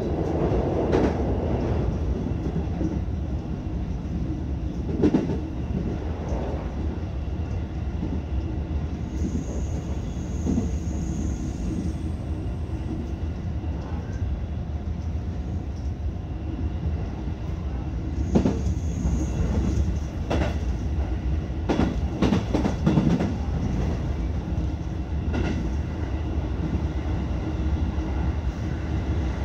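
Electric passenger train running at speed, heard from inside the driver's cab: a steady rumble of wheels on rail with a scattering of short clacks over rail joints. The rumble is heavier for the first second or so as the train comes off a steel truss bridge.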